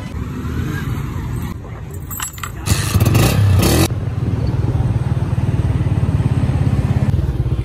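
Motorcycle engine running while riding through city traffic, with a steady low pulsing drone. A loud rush of noise lasts about a second around three seconds in.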